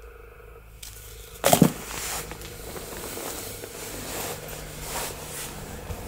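Rustling and scraping of packaging and debris being handled, with a sudden loud rustle or knock about a second and a half in, then ongoing crinkling and shuffling.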